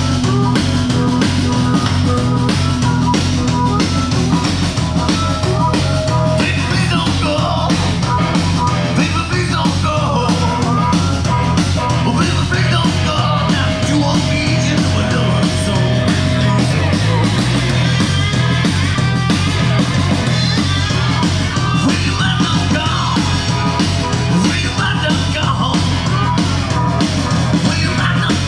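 Loud rock music with a steady driving beat and singing.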